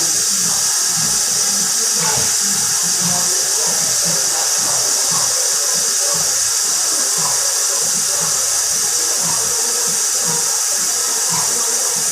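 Kitchen tap running steadily into a sink, a constant hiss of water while a bowl is being washed.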